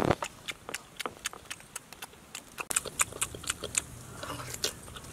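Close-up eating sounds: wet chewing and lip-smacking, heard as a run of short, irregular clicks, several a second, with one louder knock at the start.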